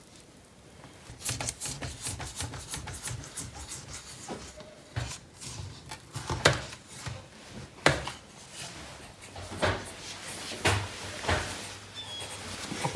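Irregular clicks, knocks and rubbing as a metal bundt cake tin is handled on the oven tray with a tea towel while the cake comes out of the oven, with a few sharper knocks, the loudest about halfway through.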